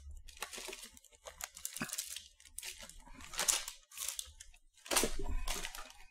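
Plastic snack wrappers crinkling and rustling as packages are handled and packed back into a box, in a string of irregular rustles, loudest about three and a half seconds in and again around five seconds.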